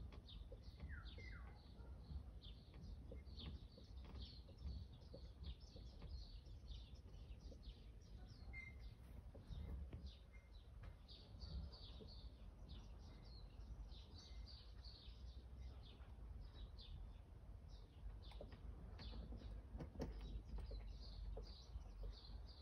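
Faint background chirping of small birds, many short irregular chirps throughout, over a low steady rumble.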